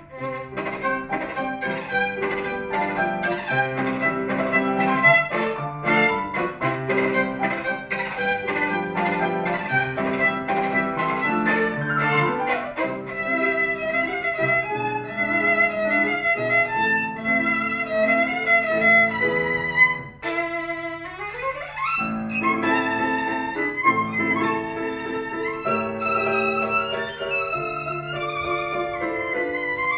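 Solo violin playing fast, virtuosic classical passagework over a piano accompaniment. Just after a brief drop about two-thirds of the way through, the violin makes a quick upward sweep.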